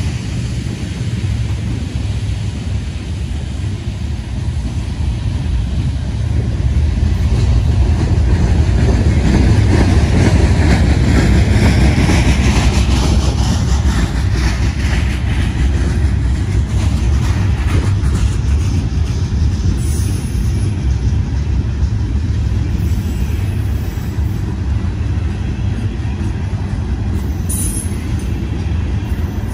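Herzog ballast hopper cars rolling past at close range: a steady rumble of steel wheels on rail, with ballast pouring from the open hopper gates onto the track bed. It grows louder in the middle as the dumping cars pass closest.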